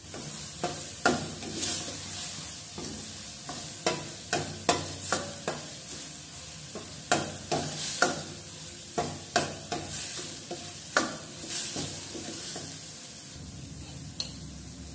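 Steel ladle scraping and knocking against a stainless steel kadai while stirring onion and spice masala paste as it fries, over a steady sizzle of the oil. The strokes come irregularly, about one or two a second, and thin out near the end.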